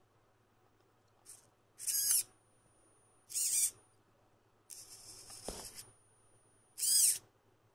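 Hobby servo motors in a robotic hand whining in short bursts as they drive the fingers, each burst with a sliding pitch. There are about five bursts, one longer and noisier a little past the middle.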